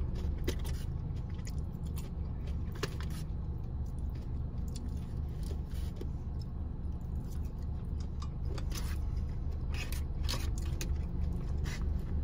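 Chewing, with a fork scraping and clicking against a foam takeout clamshell as food is picked up, in short scattered sounds over a steady low hum inside the car.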